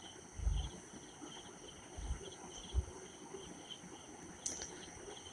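Quiet kitchen background with a faint, even high chirping about three times a second over a steady high whine, and a few soft low thumps. Near the end comes a single click as a metal spatula goes into the pan of boiling curry.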